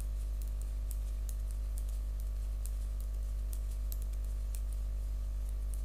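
Light, irregular clicking of metal knitting needles as stitches are purled, over a steady low hum.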